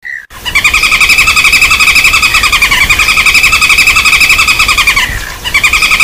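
Common flameback woodpecker (pelatuk bawang) lure recording: a loud, rapid rattling trill of repeated notes. About five seconds in there is a brief break, then it picks up again.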